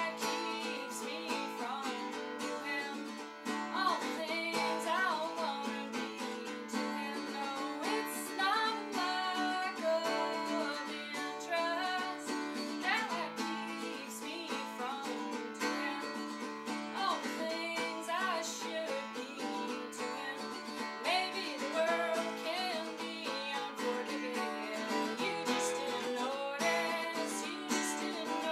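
A woman singing a song and accompanying herself on an acoustic guitar.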